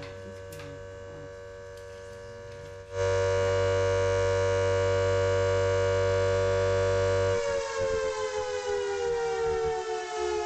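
Air-raid siren wailing on one steady pitch, quieter at first and much louder from about three seconds in, then slowly falling in pitch as it winds down over the last few seconds.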